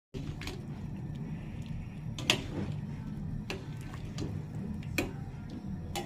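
A handful of sharp clicks or taps, the loudest about two seconds in, over a steady low rumble.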